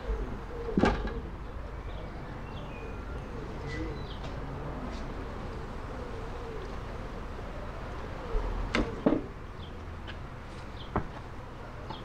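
Honeybees buzzing around an opened hive, with a few sharp wooden knocks from the hive boxes being handled: once about a second in, twice close together near nine seconds, and once more near eleven seconds.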